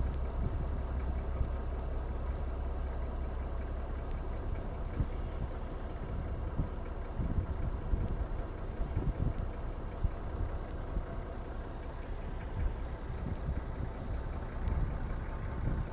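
Vehicle engine idling steadily, a continuous low rumble.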